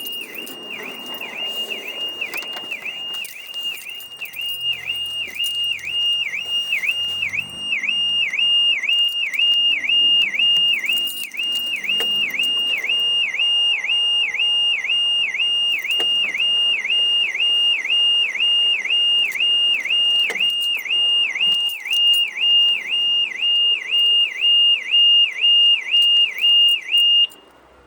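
Citroën C3 car alarm sounding: a loud, high electronic tone that dips in pitch about twice a second, cutting off suddenly near the end. The alarm is being set off by a faulty key fob.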